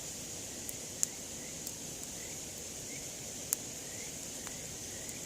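Wood campfire crackling, with sharp pops about a second in and again about three and a half seconds in, over a steady high chorus of insects.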